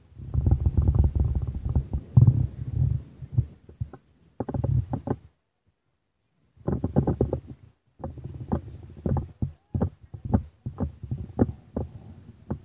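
Wind and handling rumbling on a phone microphone: uneven bursts of low rumble and short thumps, dropping out completely for about a second in the middle.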